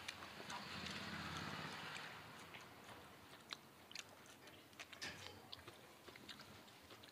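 A person chewing soft gram-flour pancake (pudla) close to the microphone, quietly, with small clicks and smacks of the mouth now and then. A soft rushing hiss lies under the first couple of seconds.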